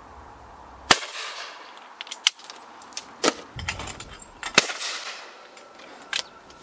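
Two loud 12-bore over-and-under shotgun shots at clays, each followed by a short echoing tail, the first about a second in and the second about three and a half seconds later. Several smaller sharp cracks and clicks come between them and near the end.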